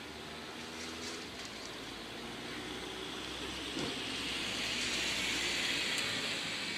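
Road traffic noise from vehicles waiting at the crossing: a low steady hum with a broad hiss that swells from about three seconds in and peaks near the end.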